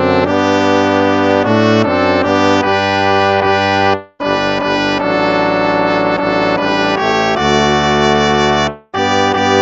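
Instrumental hymn music on brass-sounding instruments: slow sustained chords that change every second or so, with two brief breaks between phrases, about four seconds in and near the end.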